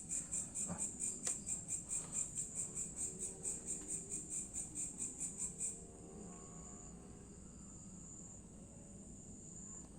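High-pitched insect chirping in quick even pulses, about four a second. It stops about six seconds in, leaving a faint steady high trill.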